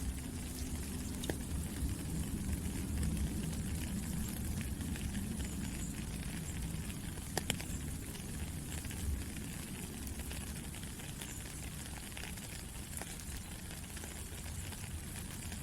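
Steady rain falling: an even hiss with a low rumble underneath and a few separate drops ticking, one sharper tick about halfway through.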